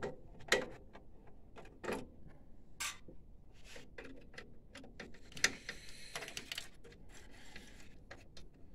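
Scattered small clicks and taps of a screwdriver and metal parts being handled while screws are undone at the back of the printer, with a short scraping rattle about five and a half seconds in.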